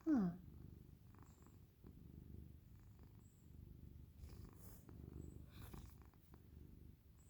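Cat purring steadily, the low rumble swelling and fading with its breathing.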